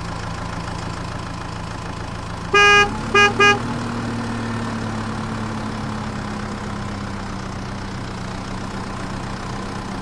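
Truck engine running steadily, with three horn honks about two and a half seconds in, one longer and two short; right after, the engine note rises a little and holds.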